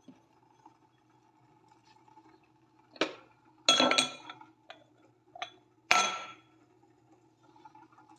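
Steel pestle pounding fresh ginger in a steel mortar: about five metallic clanks, the loudest two near the middle, each ringing briefly. A faint low steady hum runs underneath.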